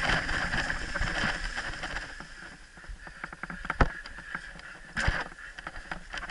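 Wheeled dryland dog-sled rig rolling over dry fallen leaves, its tyres rustling and its frame rattling. About two seconds in the rolling noise dies down and gives way to scattered clicks and knocks as the rig slows behind the bunched-up dogs.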